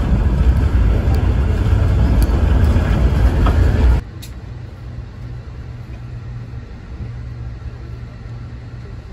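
Passenger train running on the rails, heard from inside the car as a loud, dense rumble. About four seconds in it cuts off abruptly to a much quieter steady low hum.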